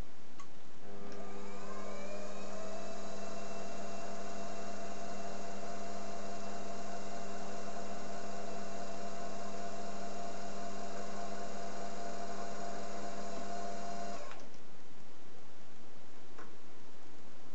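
Optimum D180x300 Vario mini lathe running up: the motor and spindle whine rises in pitch for a second or two as the chuck comes up to speed. It then runs steady for about twelve seconds and stops abruptly when switched off.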